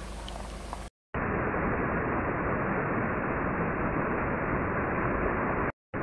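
Steady rush of stream water spilling over a small stone weir, a dense even noise. It cuts in abruptly about a second in after faint outdoor ambience and a short gap, and breaks off briefly near the end.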